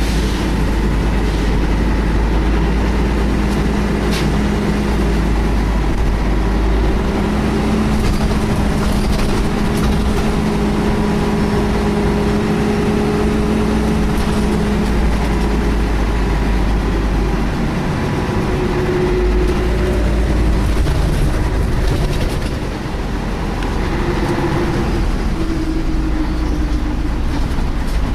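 Scania L113 bus heard from inside the saloon while running: a heavy low drone from the six-cylinder diesel and driveline, with a steady whine that holds for several seconds at a time and fades and returns.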